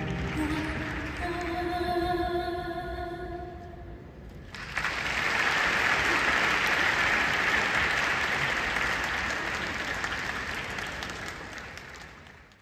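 Routine music with long held notes ends about four seconds in, and audience applause breaks out at once, then slowly dies away.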